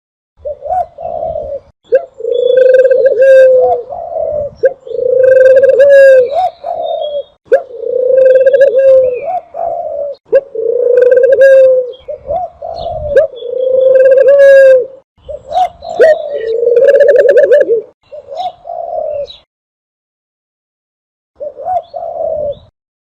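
Dove call recording used to lure doves for hunting: loud, repeated low coos, each about a second long, in close succession, with a short pause near the end.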